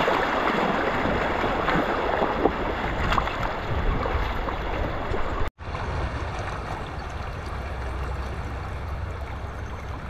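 Flowing stream water, a steady rushing noise. It cuts out for an instant about five and a half seconds in, then carries on a little quieter with more low rumble.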